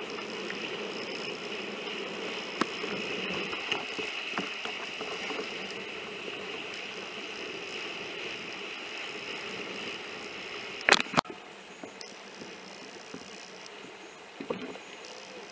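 Wind and water rushing past a sailing Hobie Cat 16 catamaran, heard muffled and boxy through a camera's waterproof case, with scattered small clicks and two sharp knocks about eleven seconds in.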